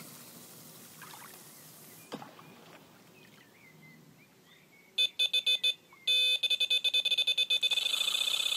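Electronic carp bite alarm sounding a run. A few quick beeps, a short pause, then beeps that come faster and faster until they run together into a near-continuous tone.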